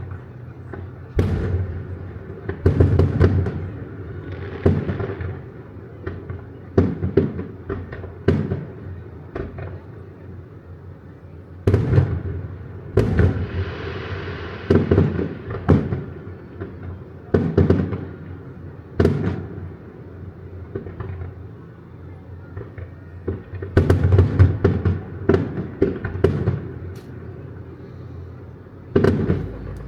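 Aerial fireworks shells bursting one after another, deep booms coming in clusters, several a second at the busiest moments. Around the middle, a hissing crackle runs for a couple of seconds.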